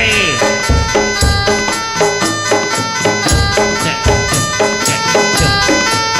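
Jaranan music: a shrill, reedy double-reed trumpet (slompret) playing a melody over low drum strokes and percussion.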